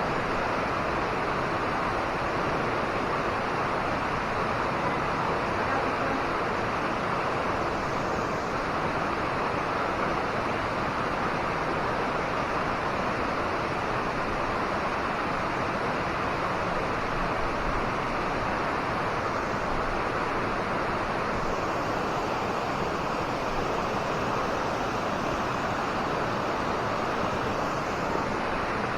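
Steady rush of flowing water from a creek along the trail, an even hiss with no breaks.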